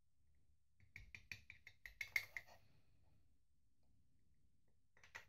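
Plastic housing of a Mercedes smart key fob clicking as it is flexed and wiggled by hand to release the internal circuit board from its latch tabs: a quick run of about ten sharp clicks starting about a second in, then a few more near the end.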